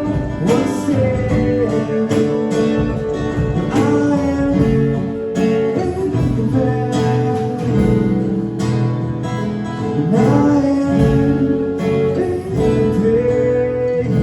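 Acoustic band music played live: acoustic guitars strumming, with a melody line of long held notes that slide between pitches.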